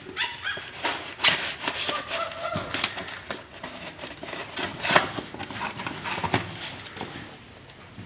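Cardboard phone packaging being handled: irregular rustles, clicks and knocks as the boxes are turned over and pulled about, with the sharpest knock about five seconds in.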